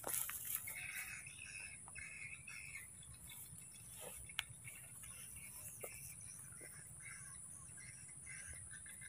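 Faint outdoor ambience: a steady high-pitched insect drone with scattered short chirps, and a sharp click about four seconds in.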